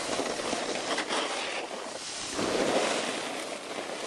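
Wind buffeting the camera's microphone: a steady rushing noise that swells a little past the middle.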